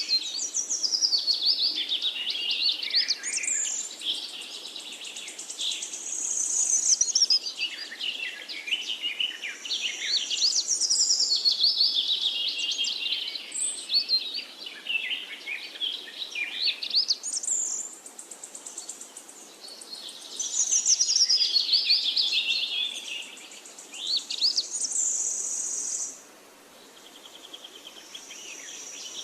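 Songbirds singing, with busy phrases of chirps and trills that overlap and pause briefly now and then.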